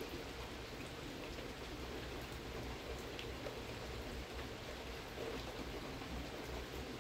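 Steady outdoor background hiss with a few faint scattered ticks.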